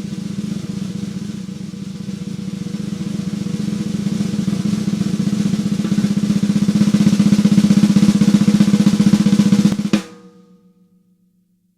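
Tama Artwood solid maple 14x8-inch snare drum played as a fast roll that builds steadily louder, ending on a single hit about ten seconds in. The drum's ring then dies away within about a second.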